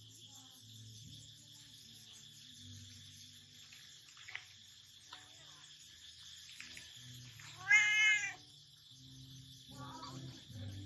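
A domestic cat meows once, short and loud, about eight seconds in, over steady insect chirring.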